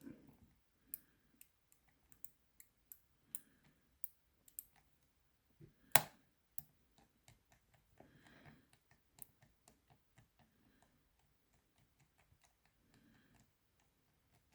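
Small irregular clicks of a Shield C30MKR combination padlock's wheels being turned notch by notch while the shackle is held under tension, feeling for the true gate; one louder click about six seconds in.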